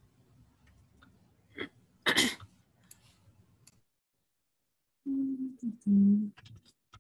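A person sneezes once about two seconds in, a short intake followed by a sharp, loud burst of breath. A few seconds later come two short voiced sounds, then a few light keyboard clicks near the end.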